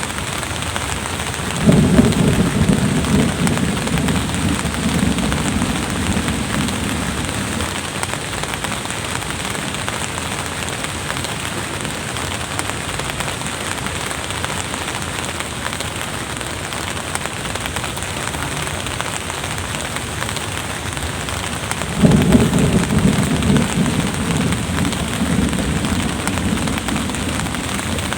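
Steady drizzling rain, with two rolls of thunder, each starting suddenly and rumbling low for several seconds: one about two seconds in, the other near the end.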